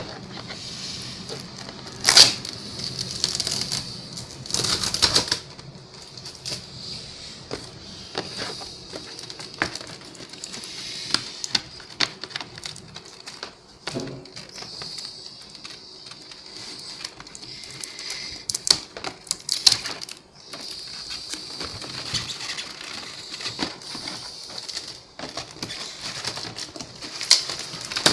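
Cardboard box being opened by hand: flaps scraping and rustling, with irregular clicks and knocks and a few sharper hits.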